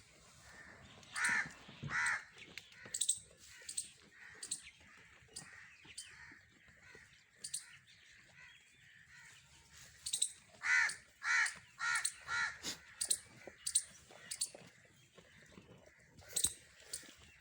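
A bird calling in short, harsh calls: two near the start and a quick run of four about ten seconds in, with sharp clicks scattered between them.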